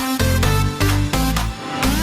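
Electronic dance music with synth chords and a steady beat, with pitch-gliding synth notes.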